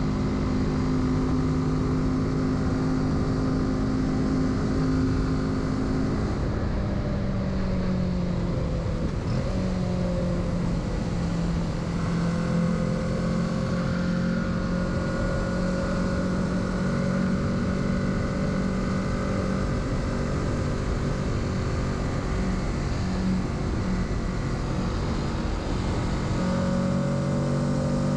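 Kawasaki Z650's parallel-twin engine running at a steady cruise under wind rush. Its pitch drops about six seconds in, slides back up around ten seconds, and shifts again near the end.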